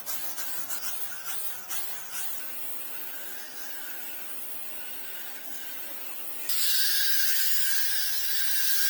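A steady hiss, with light crackling ticks over the first couple of seconds, turning much louder about two-thirds of the way in.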